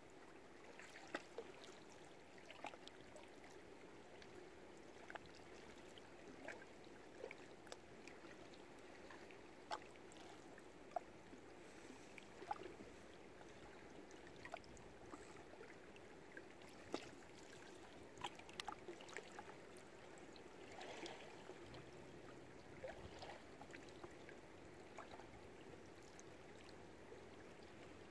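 Faint lake water lapping at a marina, a steady soft wash broken by many small scattered clicks and knocks, a few of them sharper.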